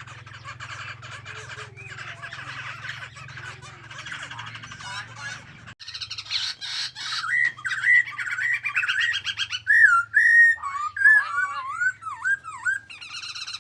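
A songbird singing: dense, fast chattering phrases at first, then from about six seconds in, louder whistled notes that swoop up and down. A faint steady low hum runs underneath.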